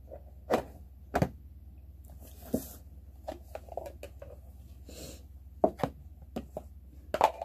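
Plastic bento boxes and their snap-on lids being handled: a scattering of sharp clicks and knocks as a lid is pulled off and the boxes are set down and stacked on a table, with a couple of brief scraping rustles between them.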